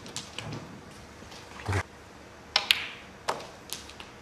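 Snooker balls clicking on a match table: scattered sharp clicks, with a loud double click about two and a half seconds in and a duller knock a little before it.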